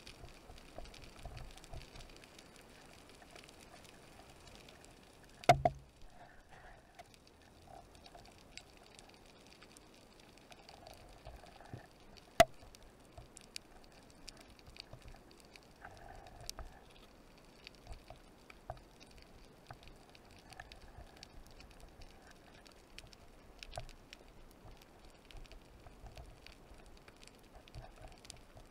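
Underwater ambience recorded through a camera housing on a rocky reef: a faint, steady crackle of tiny clicks, with two sharp knocks about five and twelve seconds in.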